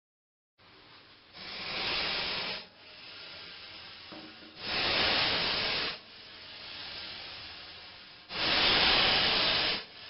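Snake hissing sound effect: three long, loud hisses a few seconds apart, with softer hissing in between, cut off suddenly at the end.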